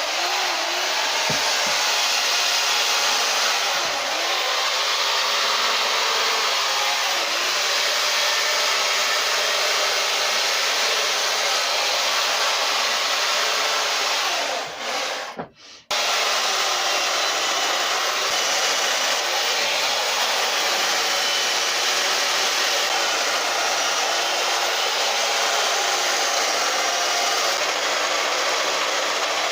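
Chainsaw running at high revs and cutting into a wood log, its pitch wavering as the throttle and cut change. It breaks off abruptly for about a second midway, then resumes.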